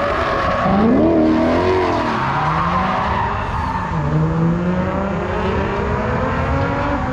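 Drift car sliding through a turn, its engine revving up and down as the throttle is worked, over steady tire skid noise.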